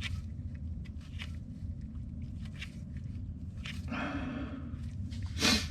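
A steel bolt being turned by hand into a freshly re-threaded hole, with faint scattered clicks and scrapes over a steady low hum; it goes in a little tight. A louder scrape or knock comes about five and a half seconds in.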